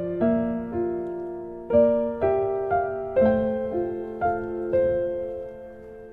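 Soft background music on piano or electric piano: gentle notes and chords struck about every half second and left to ring and fade.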